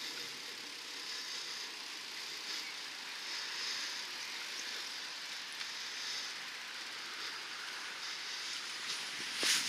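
Steady outdoor hiss of wind and road noise, swelling and fading every second or two, with one sharp knock near the end.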